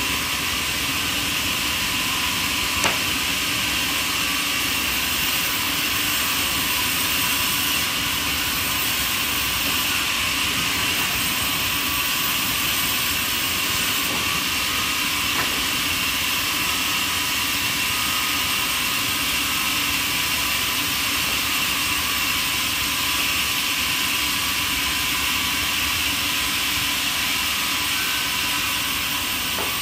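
A machine running steadily, giving an even, unchanging rushing noise, with one faint click about three seconds in.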